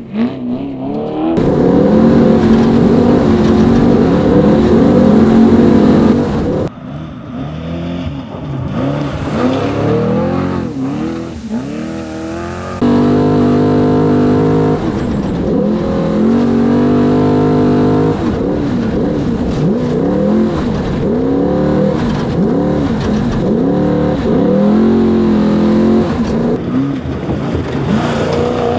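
Trophy truck engine revving hard on a dirt course, its pitch climbing and dropping again and again through the gears. The sound changes abruptly twice, about a third of the way in and again near the middle.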